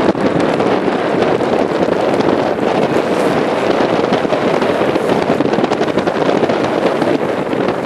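Strong wind buffeting the microphone in a steady rush, with the engine noise of a British Airways jet airliner on the runway mixed in.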